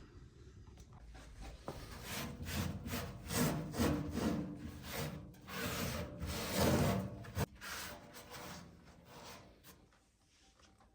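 A run of irregular scraping and rubbing strokes, loudest in the middle and fading out near the end.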